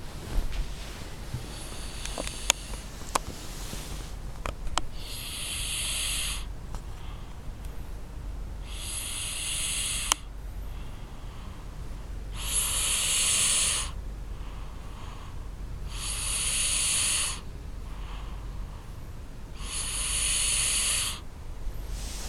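Loud snoring: five long, airy, hissing snores, about one every four seconds.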